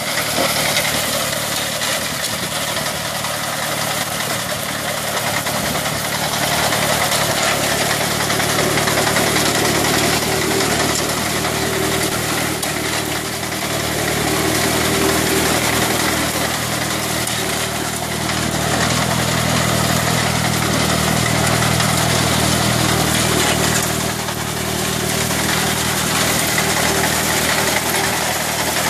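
Water-cooled 30 hp Kubota diesel engine of a reaper-binder harvesting machine running steadily under way.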